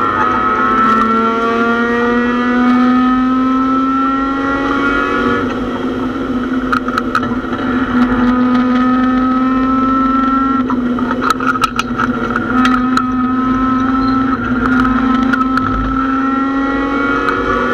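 Mazda MX-6 race car's engine running hard, heard from inside its stripped cabin. Its pitch climbs slowly for the first five seconds or so, then holds nearly steady, with a few sharp rattles and clicks from the car about two-thirds of the way through.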